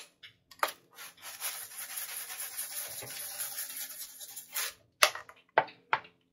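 Everything bagel seasoning rattling in a plastic shaker jar as it is shaken over vegetables, a continuous gritty rasp lasting about four seconds. A few sharp clicks follow near the end.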